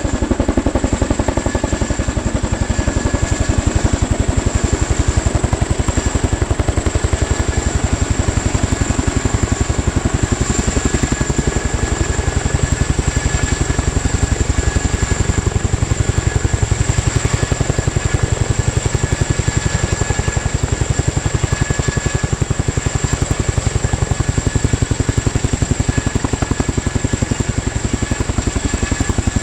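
Helicopter running close by: a fast, steady rotor beat under a high, steady turbine whine, unbroken throughout.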